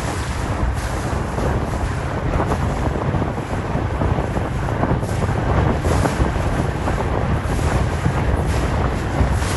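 Strong wind buffeting the microphone, a continuous low rumble, over the rush of choppy water, with repeated surges of hiss from wind and spray.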